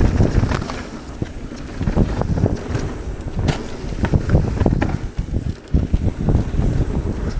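Wind buffeting an action camera's microphone on a mountain bike descending a dirt trail, over the rumble of knobby tyres and frequent short knocks and clatter from the bike over bumps.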